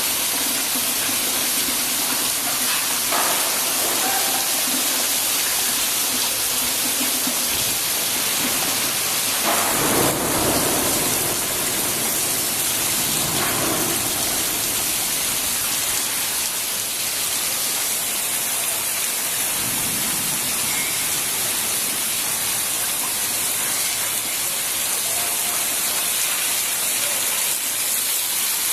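Steady, dense hiss of rain falling, with a few low rumbles rising over it, the strongest about ten seconds in.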